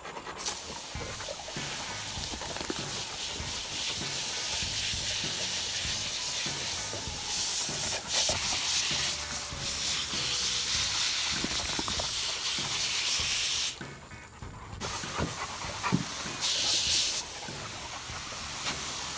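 Garden hose spray nozzle hissing as a jet of water hits a dog and the grass. The spray cuts out for about a second roughly two-thirds of the way through, then starts again.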